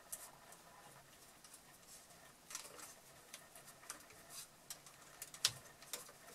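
Faint, scattered clicks and light taps of a plastic star-knob screw being handled and threaded by hand into a scroll saw's blade clamp. The sharpest click comes about five and a half seconds in.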